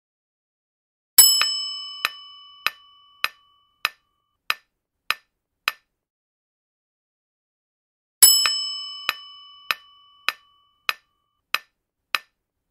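Quiz-timer sound effect: a bright bell ding that rings and fades over about two seconds, overlaid with sharp clock-like ticks about every 0.6 s. The ticking stops for a couple of seconds, then the ding and the ticks start again about eight seconds in.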